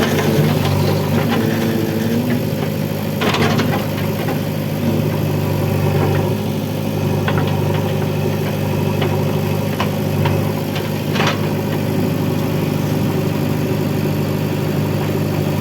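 Heavy diesel engine running steadily at constant speed, with a couple of short knocks, one about three seconds in and one near eleven seconds.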